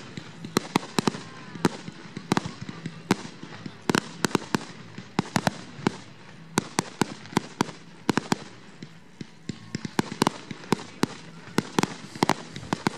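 Aerial fireworks going off in a rapid, irregular string of sharp bangs and pops, several a second.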